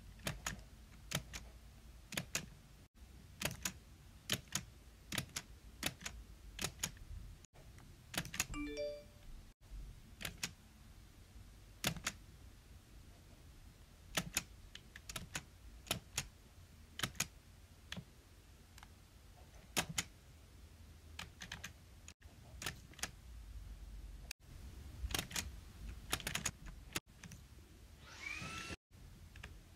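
Close-up ASMR clicking: a run of sharp, crisp clicks at irregular spacing, often in quick pairs, with a few short pitched squeaks among them.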